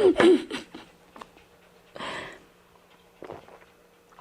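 A woman's voice trails off, then a short breathy puff about two seconds in and a faint tick, over a faint steady hum.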